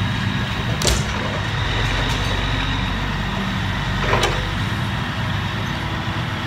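Grapple loader truck's engine running steadily as the hydraulic boom works. Debris crashes about a second in, and there is another clattering impact about four seconds in as the grapple dumps its load and swings back into the debris pile.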